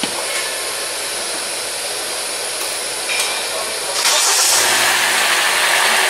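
2012 Hyundai Elantra four-cylinder engine starting about four seconds in, then running, with a new ignition coil on cylinder 3 in place of a shorted one. Before it starts there is a steady hiss and a click.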